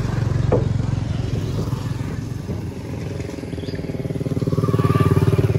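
Motorcycle engine running close by with a fast, even pulse; it eases off a little partway through, then grows louder toward the end.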